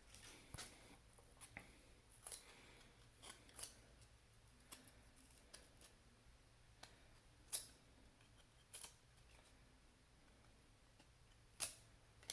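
Faint, scattered clicks and snaps of trading cards and pack wrappers being handled, a dozen or so sharp ticks spread irregularly, the loudest three in the second half.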